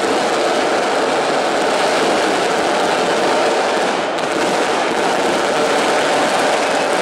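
Packed football stadium crowd cheering, one steady, unbroken wall of noise.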